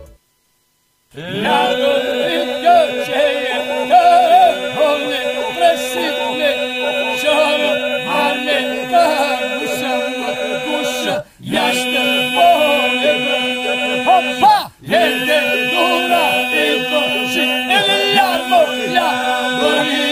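Voices singing Albanian folk polyphony, with melody lines wavering over a steady held drone (iso). The singing starts about a second in and breaks off briefly twice.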